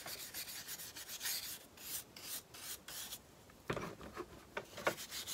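Bristle brush scrubbing paste wax onto a painted wooden spoon in repeated short, scratchy strokes, with a brief sharper knock about three and a half seconds in as the brush is dipped into the metal wax tin.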